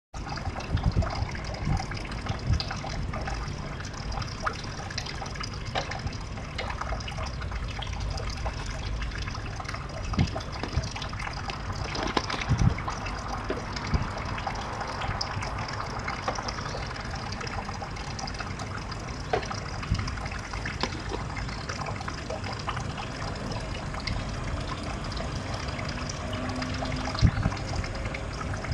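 Steady trickle and splash of running water into a garden pond, with occasional brief low bumps.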